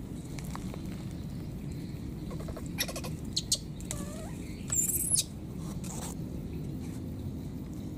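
Baby monkey giving a few short, high-pitched squeaks: a quick cluster about three seconds in and a louder, shriller squeal about five seconds in, over a steady low background noise.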